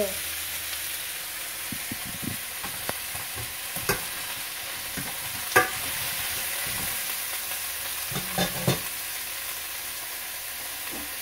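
Crab, pumpkin and onion sizzling as they are stir-fried in a stainless steel pan, with a steady frying hiss. A metal spatula knocks and scrapes against the pan a few times, the sharpest knock about five and a half seconds in.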